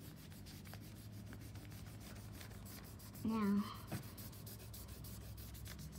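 Marker tip scratching back and forth on lined notebook paper in quick colouring strokes. A brief vocal sound from the child comes a little over three seconds in.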